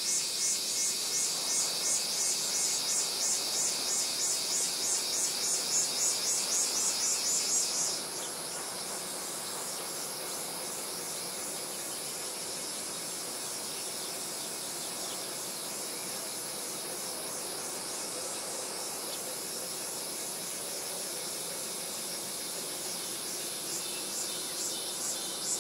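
Insects calling in a high-pitched pulsing chorus, about two to three pulses a second. It is loud at first, drops to a fainter level about eight seconds in and swells again near the end, over a steady distant city hum.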